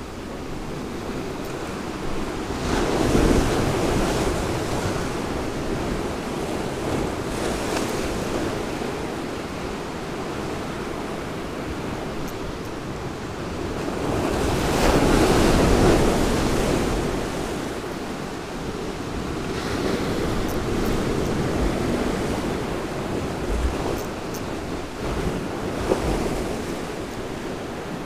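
Sea waves washing onto the shore, with wind blowing over the microphone; the surf swells in several surges, loudest around the middle.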